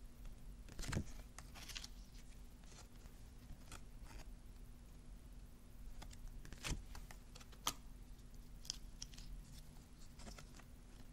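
Glossy oracle cards being handled: scattered soft rustles and light taps as cards are slid, flipped and set down.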